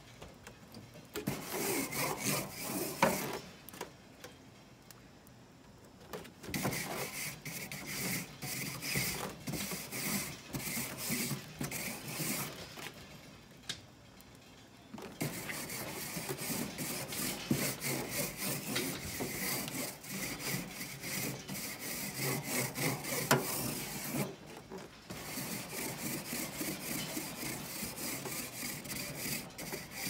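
Wire grill brush scrubbing the grates of a charcoal grill with fast back-and-forth strokes, cleaning them over the hot coals before cooking. The scrubbing comes in several bouts with short pauses between them.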